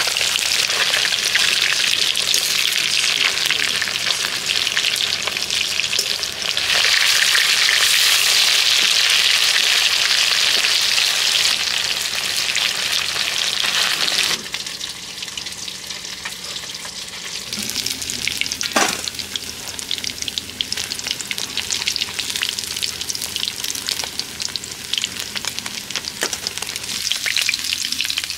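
Rohu fish pieces frying in hot oil in a steel kadhai, a loud, dense sizzle. About halfway through it drops suddenly to a quieter crackle, with a few clinks and scrapes of a metal spatula against the pan.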